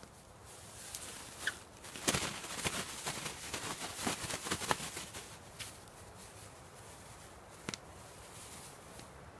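Zip-top plastic bag crinkling and rustling as beef chunks are shaken in flour inside it. The shaking is loudest from about two to five seconds in, then gives way to softer handling of the bag.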